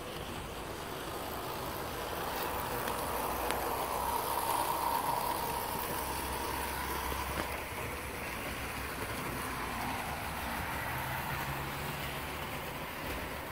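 Model train locomotives running on the layout track, a steady small-motor whir with wheel noise on the rails, swelling briefly about four seconds in.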